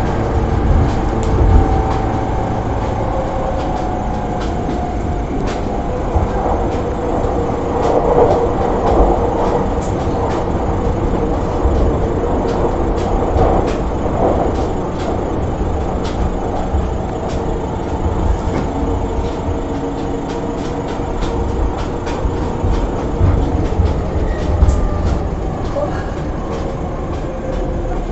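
A JR East E231-500 series electric commuter train running between stations, heard from inside the car: steady humming tones from the traction motors over a low rumble of the wheels, with frequent clicks and knocks as the wheels pass rail joints.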